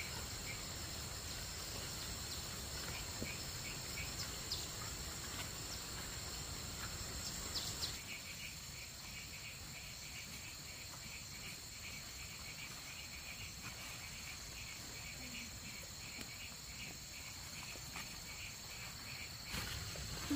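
Insects chirping in a steady rhythm a few times a second over a continuous high buzz, with a low rumble underneath.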